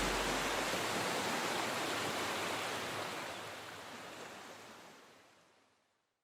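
Steady rush of falling water from a waterfall, fading out and ending about five seconds in.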